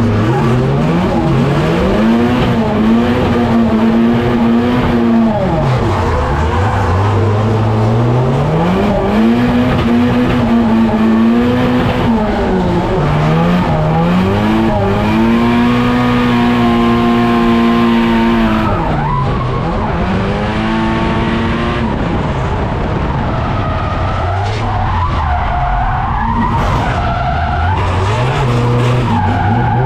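Drift car's SR20DET engine heard from inside the cabin, revving up and holding high revs, then dropping and climbing again several times, with tyres squealing as the car slides. The revs fall away sharply about 19 seconds in, and the engine runs lower before picking up again near the end.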